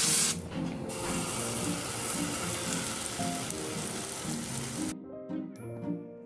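Pancake batter sizzling in a hot nonstick frying pan, a steady hiss that cuts off suddenly about five seconds in, with a brief louder hiss at the very start. Light background music plays under it.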